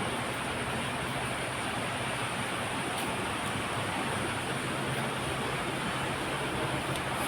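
Brass melting furnace running: a steady, even rushing roar with a faint low hum underneath.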